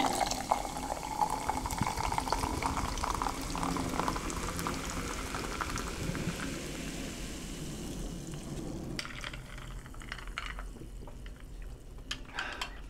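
Fizzy soda poured from a can into a mug with a metal straw in it, the pour and hiss running steadily for about nine seconds. After that it is quieter, with a few light clicks near the end.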